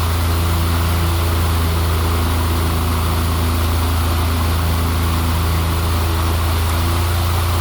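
Freshly repaired household electric fan running steadily on speed 3: a strong, even low motor hum under a constant rush of air.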